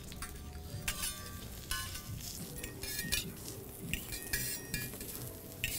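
Metal spatulas clinking and scraping on a flat steel teppanyaki griddle as onion slices are separated into rings, with several sharp metallic clinks that ring briefly.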